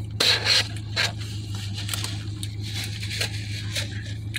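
Eating sounds: a plastic fork scraping and rustling in a takeout container of noodles, with chewing and mouth clicks, over a steady low hum.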